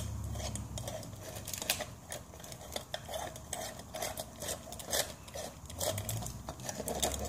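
Small glass jar clinking and clicking against a solar LED light's housing as it is fitted over the LEDs as a diffuser, in many short irregular clicks.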